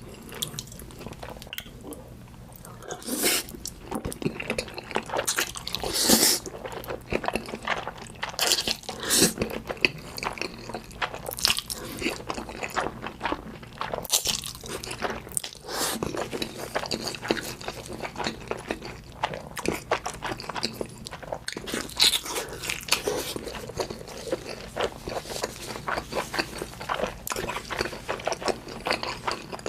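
A person biting into and chewing crunchy food, with many sharp, irregular crunches.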